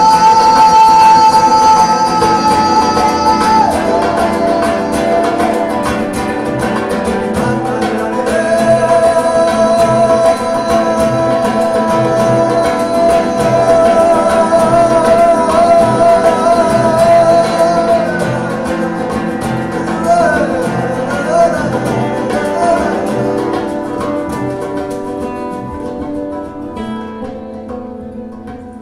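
A man singing long, wordless held notes over a strummed nylon-string classical guitar with a steady rhythm. The voice drops to a lower note about four seconds in, holds it, wavers in a short run near twenty seconds, and the music fades out near the end.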